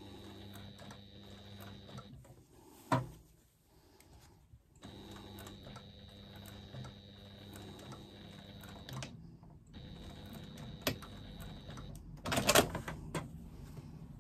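Electric sewing machine stitching through layers of fabric, its motor running steadily in three stretches with short pauses between them. A sharp clack about 3 seconds in and a brief, louder clatter of handling near the end.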